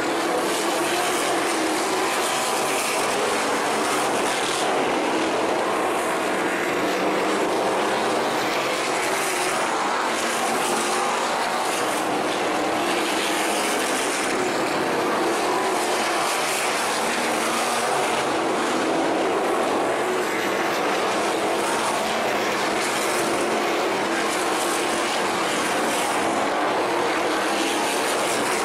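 Sprint cars racing on a dirt oval, engines running hard in a steady, dense engine noise with no letup.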